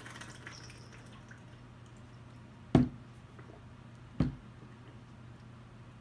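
A man gulping a drink from a plastic shaker bottle: two loud swallows about a second and a half apart, over a faint low steady hum.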